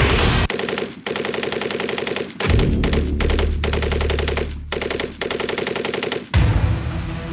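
SAR 762 MT belt-fed 7.62×51 mm NATO machine gun firing rapid, evenly spaced shots in several bursts with short breaks between them. The firing stops about six seconds in, with music underneath and continuing after it.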